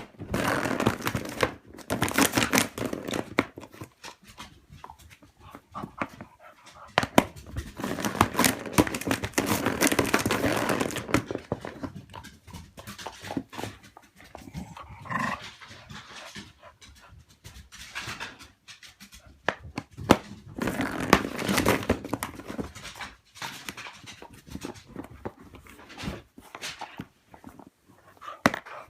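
Cocker spaniel panting hard in spells while it plays with a cat toy, with scuffling and sharp knocks and clicks scattered throughout.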